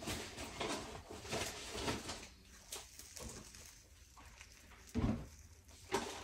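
Plastic spatula scraping and tapping around the edge of a pancake in a nonstick frying pan, in short irregular strokes, with a dull knock about five seconds in.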